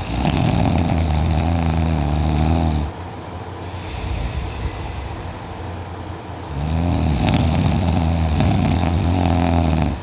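A sleeping person snoring very loudly, like a growling bear. There are two long, deep snores of about three seconds each, one at the start and one from about six and a half seconds in, with quieter breathing between.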